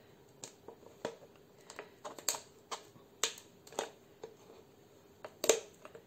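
Thin plastic drink bottle crackling and clicking in the hands as cord is threaded through holes in its side: about a dozen irregular sharp clicks, the loudest near the end.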